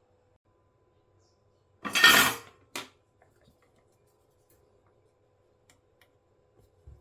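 A brief clatter of objects being handled on a workbench about two seconds in, followed by a single click. Otherwise only a faint steady hum.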